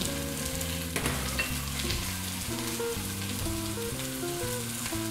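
Onions, carrots and celery sizzling steadily as they fry in oil and short-rib drippings in an enameled cast-iron pot, with a fine crackle. Background music with a run of low notes plays underneath.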